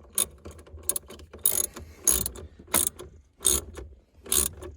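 Ratchet socket wrench being worked back and forth to tighten a bolt, its pawl clicking in a short rasp on each return stroke, about one every two-thirds of a second.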